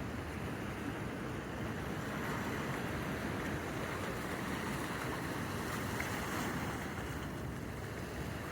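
Ocean surf washing ashore in a steady rush that swells for a few seconds midway and then eases, with breeze on the microphone.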